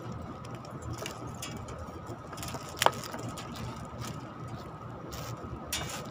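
Steady low background rumble with a faint steady tone, over light clicks and rustles of electrical wire being handled, with one sharper click about three seconds in.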